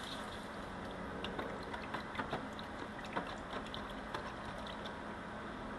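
A hot steel part held down in a jug of water to quench it: the water sizzles and bubbles steadily, with many small irregular clicks.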